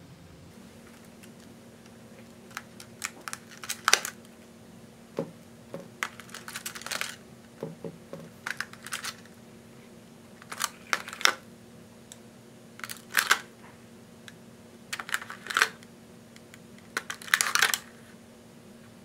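Clicking and clattering of a hard clear plastic tray being handled as play-clay balls are pulled from its moulded cups, in short irregular clusters every second or two. A faint steady hum runs underneath.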